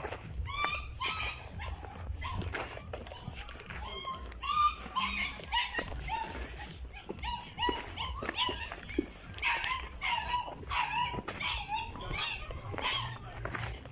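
Dogs barking and yelping repeatedly in many short calls.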